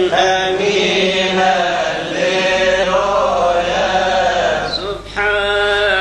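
A man chanting a Coptic madih (hymn of praise) alone, unaccompanied, in long held notes that bend and wander in pitch. He breaks briefly about five seconds in, then carries on.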